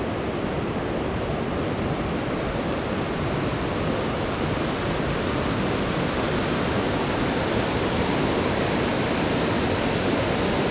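Steady rushing roar of river water pouring through the gorge below, even and unbroken.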